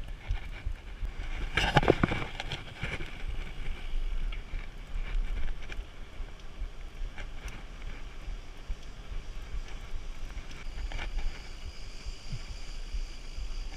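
Wind rumbling on the microphone of a camera riding on a mountain bike, with tyre noise on asphalt and a short, loud clatter of the bike about two seconds in.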